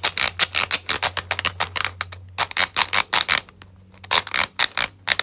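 The second-loudest wheel of a 3D-printed 12-in-1 fidget toy being rolled, giving a fast run of plastic clicks that pauses briefly about three and a half seconds in.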